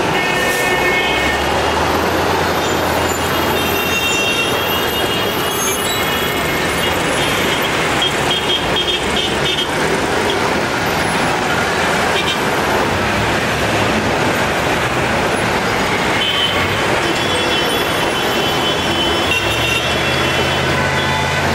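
Busy city street traffic noise as a two-car electric tram passes close by, with short high-pitched tones sounding several times over the top and a low hum at the start and near the end.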